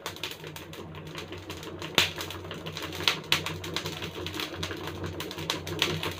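Burning charcoal, fanned hard, crackling and bursting under a wire grill: a rapid, irregular run of sharp snaps and pops, the loudest about two seconds in. The coals are spitting embers.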